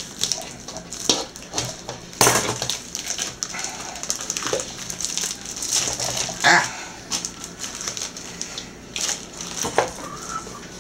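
Plastic film crinkling and rustling as it is cut and peeled off tubes of raw ground beef in a stainless steel bowl, in irregular crackles with a few sharper knocks.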